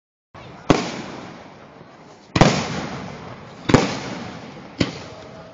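Fireworks bursting: four sharp bangs spaced about one to one and a half seconds apart, each trailing off in a rumbling echo.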